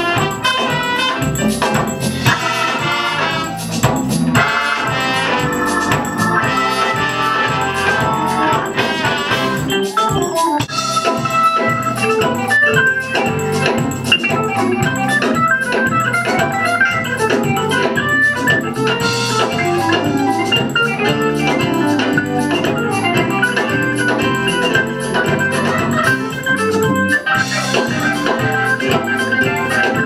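Live band music: organ and trumpets over bass guitar and a steady beat. Trumpets lead in the first several seconds, then the organ comes to the fore.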